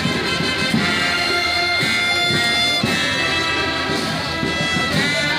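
Military band playing, brass instruments holding long notes that change every second or two.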